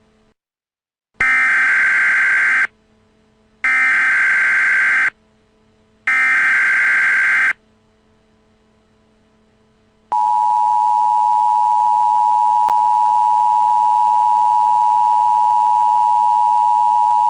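Emergency Alert System signal: three short bursts of buzzing SAME header data about a second apart, then, from about ten seconds in, the steady two-tone EAS attention signal.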